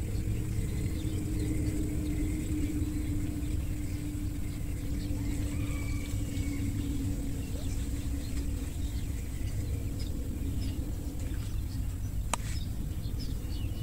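Steady low outdoor rumble with a faint steady hum, scattered faint bird calls, and a single sharp click near the end.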